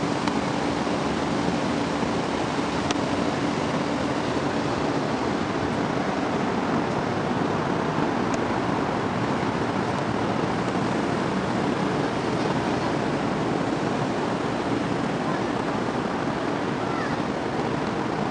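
Steady rushing noise of wind and ocean surf, with a low steady hum for the first few seconds.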